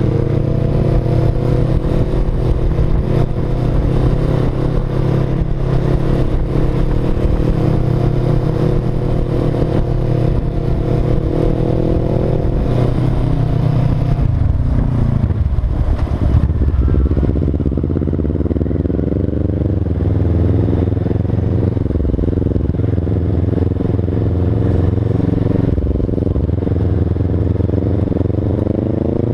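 Motorcycle engine running under way, heard from on the bike. Its note holds steady, drops about halfway through as the rider eases off, then climbs back as the bike accelerates, and starts rising again near the end.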